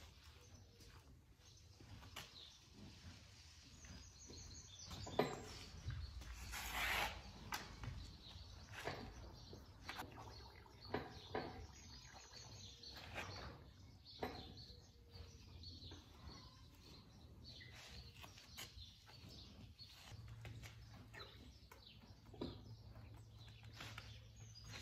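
Faint handling sounds around a horse being groomed: scattered soft knocks and rustles, with one louder rushing noise lasting about a second, about seven seconds in.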